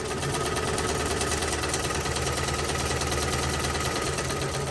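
Restored Singer vibrating-shuttle sewing machine, driven by its electric motor, sewing a straight test seam at a steady speed: a rapid, even mechanical clatter of the needle and shuttle.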